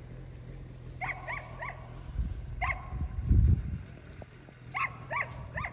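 A dog barking in short yaps: three quick barks about a second in, a single one shortly after, and three more near the end. A low rumble about three seconds in is the loudest sound.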